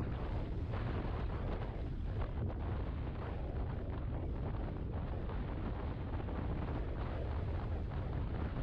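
Wind buffeting the microphone on a maxi-scooter riding at road speed: a steady low rumble of wind and road noise.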